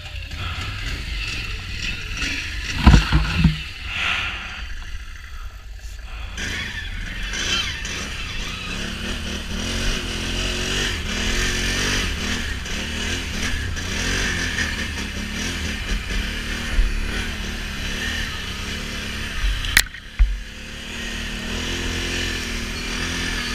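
Can-Am Renegade XMR 1000 ATV engine running and revving up and down under load. There is a heavy thump about three seconds in and a sharp snap about twenty seconds in.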